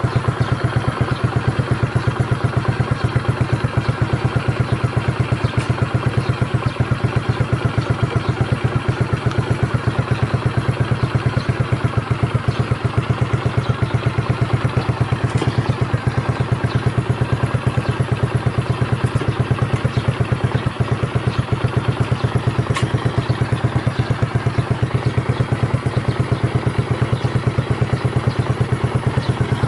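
Honda GB250 Clubman's single-cylinder four-stroke engine idling steadily through an aftermarket Payton Place muffler, with evenly spaced exhaust pulses and no change in speed. The seller reports the engine runs with no abnormal noises.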